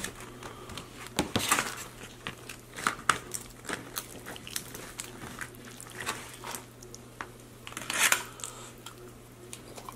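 Tortilla chips crackling and the plastic clamshell tray crinkling as fingers dig through a tray of loaded nachos. Irregular crunches throughout, the loudest about a second and a half in and again about eight seconds in.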